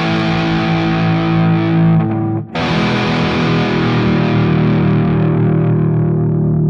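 Distorted electric guitar chords through a flanger: one chord rings, breaks off about two and a half seconds in, and a new chord is struck that rings out with its bright top slowly fading.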